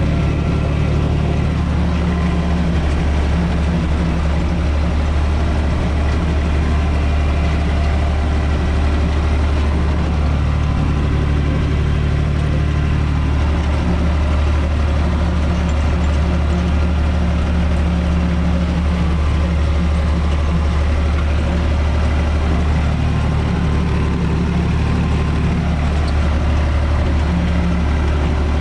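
UTB 445 tractor's four-cylinder diesel engine running steadily, heard from inside the cab, as it drives a rotary tiller through the soil. The engine's deep hum holds even throughout.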